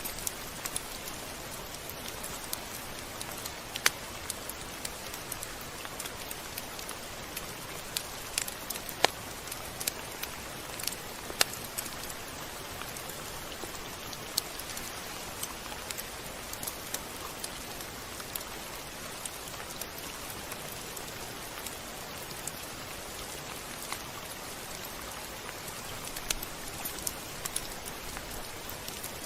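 Steady rain falling, an even hiss with irregular sharp drops and taps scattered through it, a few much louder than the rest.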